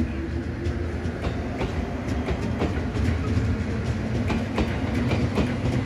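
A train running along the track: a steady low rumble with the wheels clicking over rail joints several times a second.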